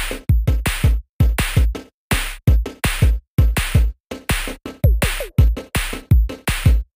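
Electronic background music with a drum-machine beat: deep kick drums and sharper hits in a steady rhythm.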